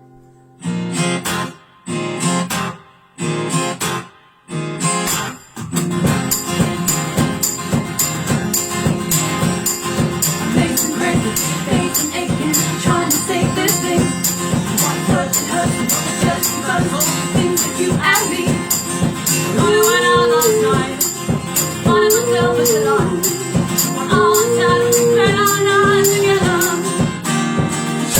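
Live acoustic guitar and percussion playing a song intro: four separate strummed chords, then steady rhythmic strumming over a regular percussion beat from about six seconds in, with a melody line joining near the end.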